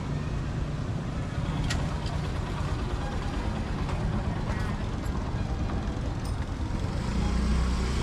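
Steady street noise with a low rumble, then a motor scooter's engine growing louder as it comes close near the end.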